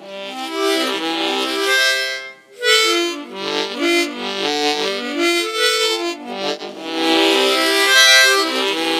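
Harmonica playing a tune in chords and quick runs of notes, with a short break about two and a half seconds in.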